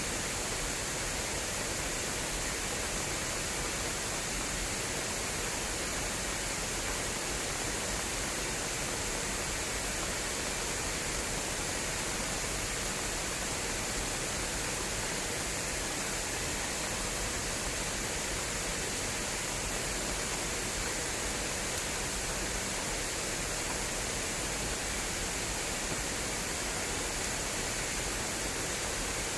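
Fast-flowing water rushing steadily through an irrigation channel, an even hiss with no let-up.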